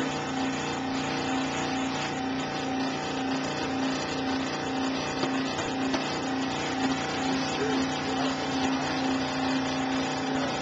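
Benchtop scroll saw running with a steady hum as its blade cuts through a block of foam.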